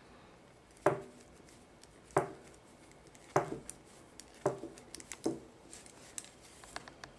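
Knitting needles clicking against each other as stitches are knitted: five sharp clicks roughly a second apart, then a few fainter ticks near the end.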